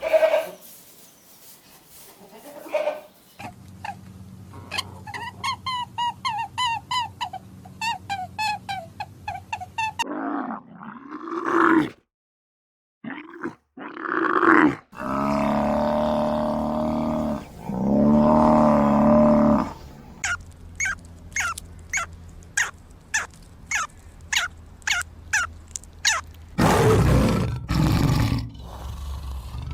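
A string of different animal calls in quick succession, changing every few seconds: a rapidly repeated call, then long, low, drawn-out calls about halfway through, then a fast run of clicks and a loud noisy call near the end.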